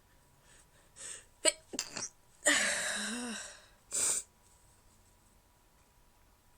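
A woman sneezing, trying to hold the sneezes in. A breath comes in about a second in, then two short, sharp stifled sneezes. A longer, louder sneeze with some voice in it follows, and a quick breath ends the fit.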